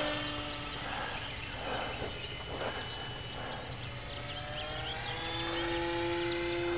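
Electric motor and propeller of a small battery-powered RC Corsair flying at a distance: a thin, steady whine that grows louder near the end as the plane comes closer.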